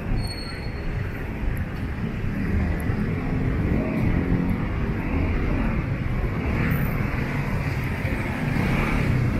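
City street traffic: cars and other motor vehicles passing, a steady rush of engine and tyre noise.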